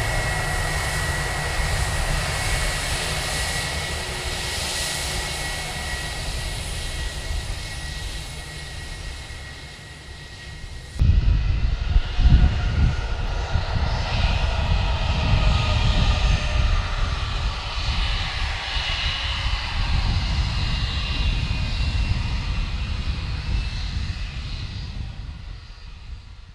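IAE V2500 turbofan engines of an Airbus A320 running at low taxi power: a steady high whine over a deep rumble that slowly fades. After a sudden cut about eleven seconds in, the engines are louder again, rumbling, with whine tones that slowly drift in pitch before fading near the end.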